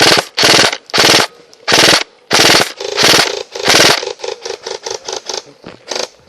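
Airsoft rifle firing about seven short full-auto bursts in quick succession, each a rapid rattle of shots. It then fires a run of quieter, quicker short strings.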